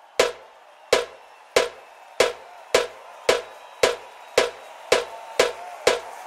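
Single drum strikes in a music track, evenly spaced and speeding up from about one every 0.7 seconds to about two a second, over a faint held tone.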